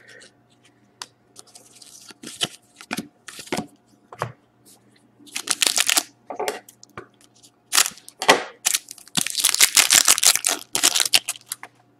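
Trading cards being shuffled and handled with small clicks and slides. From about five seconds in, a shiny trading-card pack wrapper crinkles and tears as it is opened, loudest from about nine to eleven seconds.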